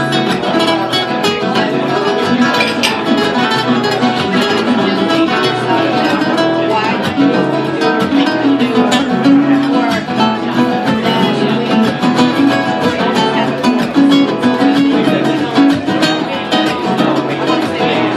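Solo flamenco guitar, a nylon-string guitar played with quick runs of plucked notes and strums.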